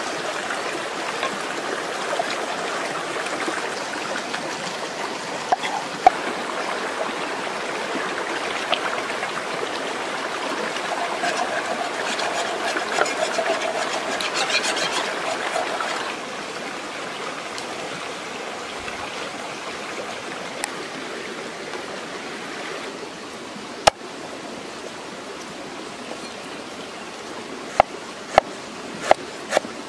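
Shallow stream running over rocks, with water sloshing and splashing as a wooden chopping board is rinsed and scrubbed in it. Near the end, a few sharp knife strokes on the wooden board, about two a second.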